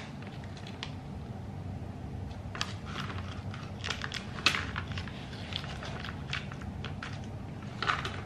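Plastic cat-treat pouch crinkling as it is handled and opened, in irregular short crackles.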